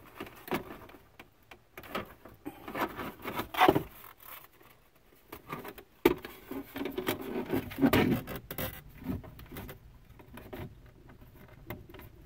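Hands working at plastic interior trim to pull a cigarette lighter wiring connector loose: scattered rubbing, scraping and small clicks, with one sharp click about six seconds in.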